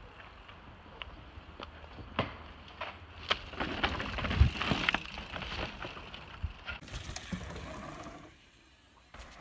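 Mountain bike rolling over a wooden plank boardwalk, its tyres knocking and clattering on the slats. The knocks grow louder and thicker as the bike passes close, loudest about four to five seconds in, then fade.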